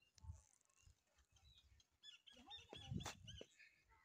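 Faint outdoor ambience with birds calling several times in short chirps, mostly in the second half, and low thumps on the microphone, the loudest about three seconds in.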